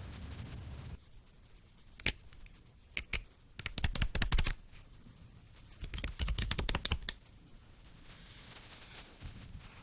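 Black slime with holographic microbeads being worked by hand, giving sticky crackling pops: a single pop about two seconds in, then two dense runs of rapid crackles around four and six and a half seconds, with quiet stretches between.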